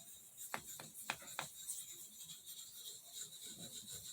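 Faint scraping of a pocketknife blade worked in small circles on an oiled soft Arkansas whetstone, with four light clicks in the first second and a half.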